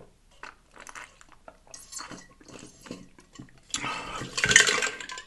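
Water sipped through the straw of a large insulated tumbler, with small sucking and swallowing clicks. Near the end comes a louder noisy rush lasting about a second and a half.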